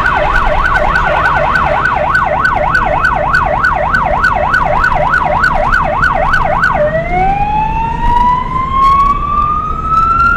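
Electronic emergency-vehicle siren sounding a fast yelp, sweeping up and down about three and a half times a second, then switching about seven seconds in to a slow wail that rises steadily in pitch. A vehicle engine rumbles underneath.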